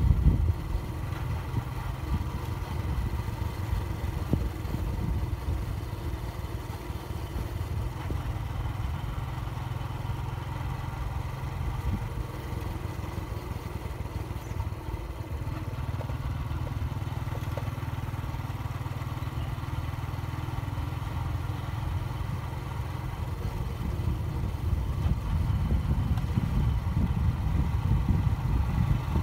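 Motorcycle on the move, its engine a steady low hum that grows louder over the last few seconds.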